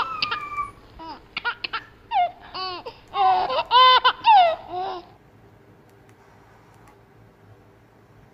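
Kittens meowing: a quick run of high-pitched meows, many rising then falling, that stops about five seconds in.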